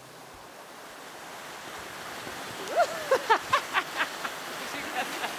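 A rushing noise, then from about three seconds in a woman laughing in a quick string of short bursts, each rising and falling in pitch.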